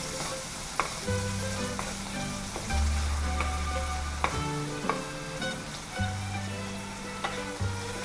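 Beef slices and garlic sizzling in sauce and oil in a hot coated wok, stirred and flipped with a wooden spatula that scrapes and taps against the pan every second or so.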